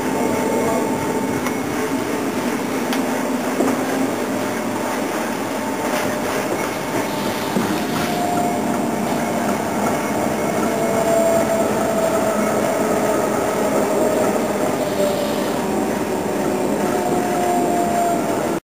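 Passenger train running along the track, heard from on board: a steady rumble with a faint whine that drifts slowly up and down in pitch.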